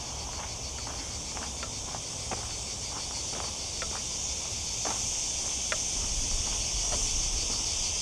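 Loud chorus of crickets: a steady high-pitched buzz pulsing rapidly and evenly, over a low rumble of wind on the microphone.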